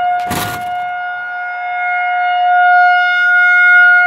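Federal Signal 2001 rotating outdoor warning siren sounding a steady single tone during its scheduled test, swelling louder as the turning horn swings toward the listener. A brief rush of noise about half a second in.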